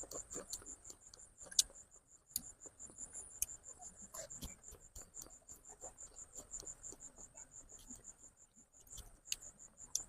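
A cricket chirping steadily, a high pulse about five times a second, with scattered short clicks and smacks of eating.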